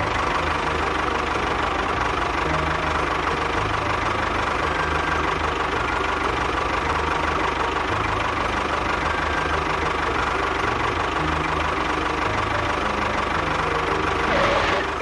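Tractor engine sound effect running steadily at idle, with a low, regular pulsing underneath.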